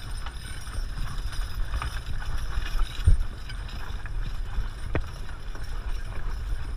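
Six-horse Percheron team pulling a wagon over dry dirt: hoofbeats mixed with harness and wagon rattle. A heavy knock comes about three seconds in and a sharp click near five seconds.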